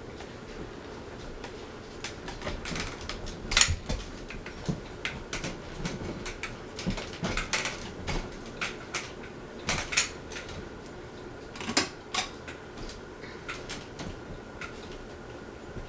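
Hampton Bay Courtney ceiling fan running with a steady hum, under irregular light clinks and clicks, a few of them sharper and louder.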